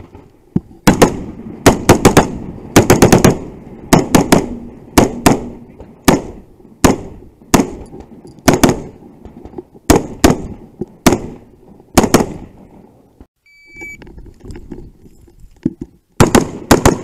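Semi-automatic AR-style carbine firing fast pairs and strings of shots, one after another. About three-quarters of the way through the shooting stops, a shot timer gives a short high beep, and a new burst of quick shots follows near the end.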